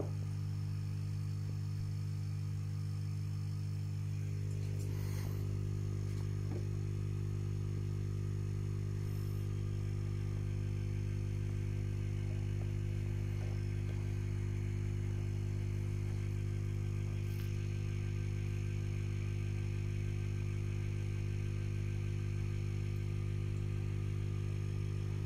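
Steady low electrical hum from running aquarium equipment, with a few faint ticks.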